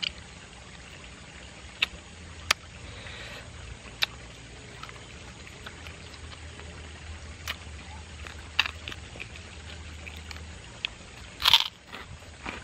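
Close-up eating sounds of fried game bird being chewed off the bone: scattered sharp crunches and mouth smacks every second or two, with a louder burst of crunching near the end, over a low steady hum.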